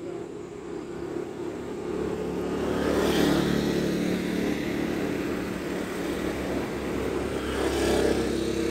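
Motor vehicle engines passing, the engine hum and road noise swelling about three seconds in and again near the end.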